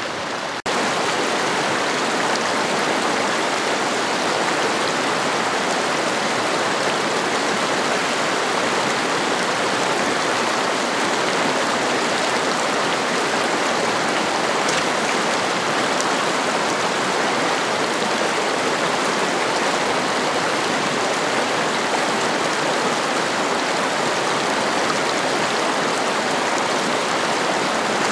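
Mountain stream rushing over rocks and a small cascade, a steady close hiss of running water. It breaks off for an instant under a second in, then goes on a little louder.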